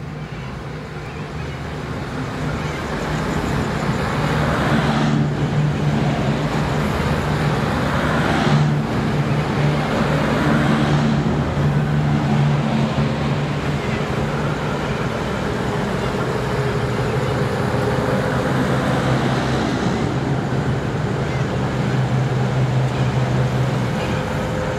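V/Line VLocity diesel multiple-unit train drawing into the station and passing close beneath, its underfloor diesel engines giving a steady low drone. The sound builds over the first few seconds as the train comes closer, then holds steady, with a few brief louder rushes in the first half.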